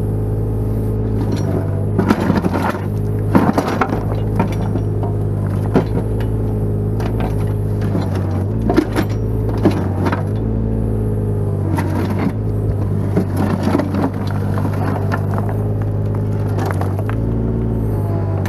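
Kubota KX018 mini excavator's three-cylinder diesel running steadily, its note dipping and recovering several times as the hydraulics take load. The steel bucket scrapes and knocks against riprap stones and soil a dozen or so times.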